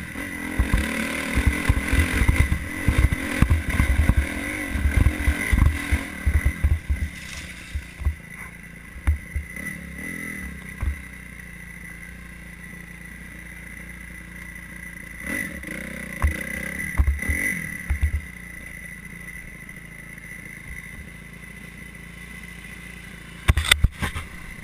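Kawasaki KX-F four-stroke dirt bike engine pulling hard up a rocky climb, with the bike jolting and clattering over loose stones, then dropping to a quieter steady idle about eight seconds in. Brief louder spells of revving come midway, and a few sharp knocks near the end.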